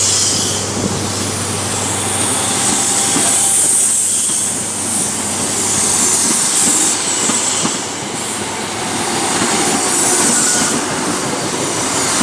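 Coaches of a High Speed Train passing along the platform at low speed: wheels running on the rails with scattered clicks and a steady high hiss. The sound swells and fades about every three seconds.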